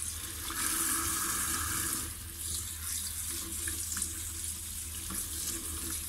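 Kitchen tap running onto lettuce leaves in a stainless steel sink, the water splashing and changing as hands rub the leaves clean under the stream.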